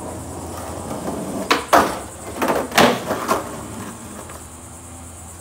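Skateboard on a concrete sidewalk: several sharp clacks of the board striking the ground, one after another, between about a second and a half and three and a half seconds in, then quieter wheel rolling.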